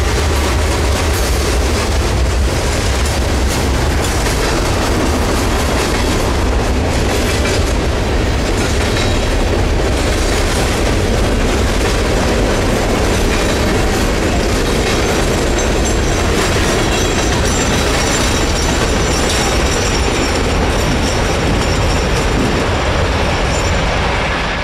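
Freight train of open-top hopper cars rolling past close by: a loud, steady rumble of steel wheels on rail.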